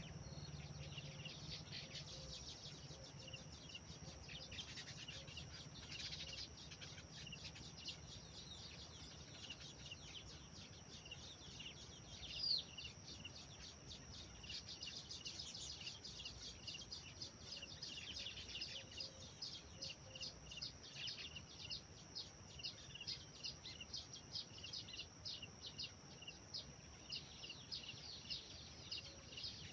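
Birds chirping in a dense, continuous chorus of quick, high chirps, with one louder, sharp call about twelve seconds in. A faint low rumble of background noise runs underneath.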